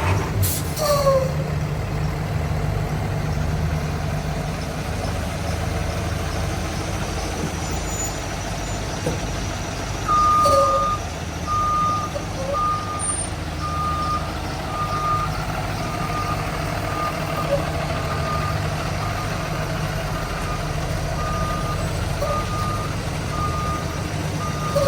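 A 2009 Blue Bird school bus's Cummins 6.7 inline-six diesel running with a steady low rumble. About ten seconds in, its reversing alarm starts beeping regularly, a little faster than once a second, as the bus is put in reverse.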